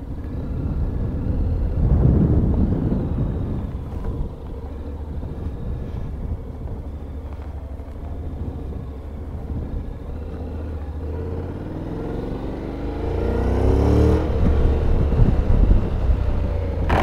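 Honda Forza 750's 745 cc parallel-twin engine pulling away and accelerating at low speed, a low rumble. Its pitch rises about two-thirds of the way through as it speeds up.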